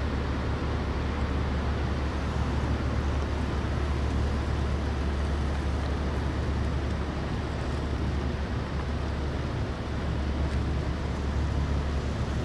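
A large ferry's engines giving a steady low rumble that does not change.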